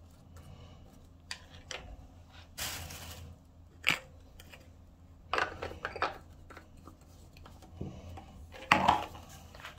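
Plastic tube of mold-removal gel and its cap being handled: scattered light clicks and rustles, a short hissing rustle about three seconds in, and a louder clack near the end as the red cap is pushed onto the tube.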